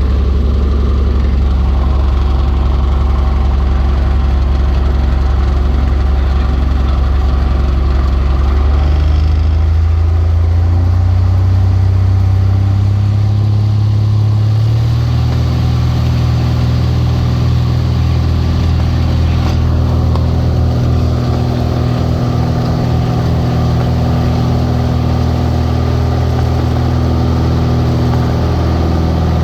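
Cessna 182 RG's six-cylinder piston engine and propeller running. The pitch steps up twice, about nine and fifteen seconds in, then holds at a steady, higher drone as power comes up for departure.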